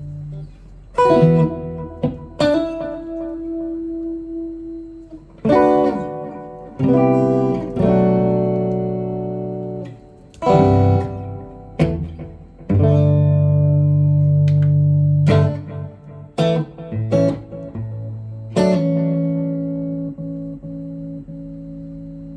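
Electric guitar played through a BOSS GT-1 multi-effects processor: strummed chords and picked notes, each ringing out and sustaining for a few seconds, with a long chord left to fade near the end.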